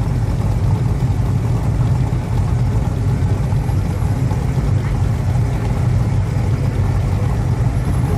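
Steady low exhaust rumble of classic V8 cars creeping along at walking pace, nearest a white second-generation Chevrolet Camaro Z28 rolling at idle.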